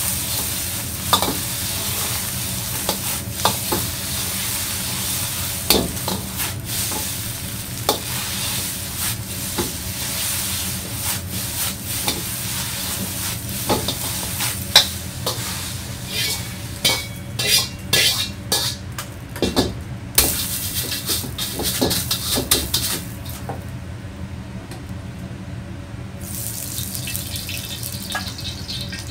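Eggs sizzling in hot oil in a carbon-steel wok while a steel wok ladle stirs and scrapes them, clinking sharply against the pan over and over, over a steady low rumble. Near the end the sizzle stops for a couple of seconds, then oil starts hissing again in the emptied wok.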